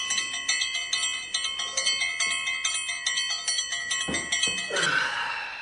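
Bell-like alarm ringtone, a quick chiming melody of about two or three notes a second, that cuts off abruptly near the end. Bedding rustles as it stops.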